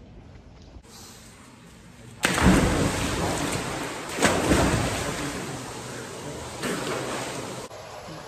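A person plunging into a small courtyard pool with a sudden loud splash about two seconds in, followed by two more surges of heavy splashing and churning water that die away.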